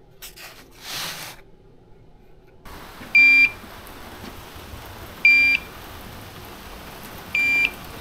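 Toptes CT-580 carbon monoxide meter sounding warning beeps: three short, high-pitched beeps about two seconds apart over a steady hiss. The meter reads about 107 ppm of carbon monoxide while it beeps.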